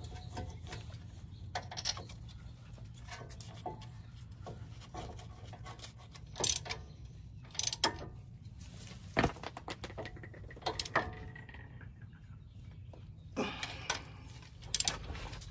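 Ratchet wrench clicking in short runs, with scattered metal clinks and knocks of tools on steel, as the brake caliper bracket bolts are run in.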